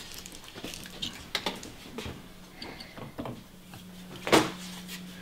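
Footsteps and small knocks and clicks of things being handled, over a steady low hum, with one sharper knock about four seconds in.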